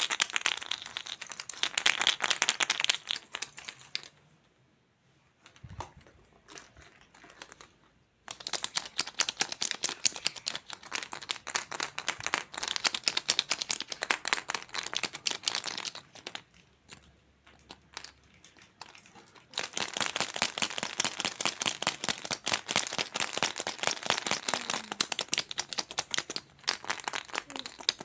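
Plastic crinkling and rustling, dense and rapid, in three long stretches broken by two quieter pauses of a few seconds.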